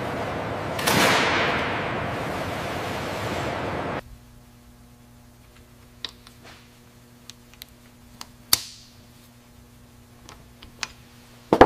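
A loud, steady rushing noise swells briefly about a second in and cuts off abruptly. It gives way to a low steady hum with scattered small clicks and taps from metal parts and a rubber seal being handled and fitted on a workbench, ending in a sharper double click.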